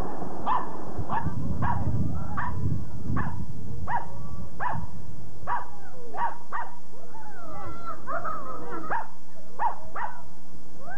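Small dog barking over and over in short, sharp yaps, about one every two-thirds of a second, with high whining yelps between barks in the later part.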